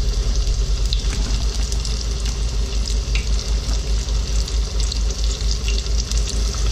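Flour-dredged panfish fillets sizzling in hot oil in a stainless skillet: a steady hiss with scattered crackles and pops as more fillets are laid into the oil. A steady low hum runs underneath.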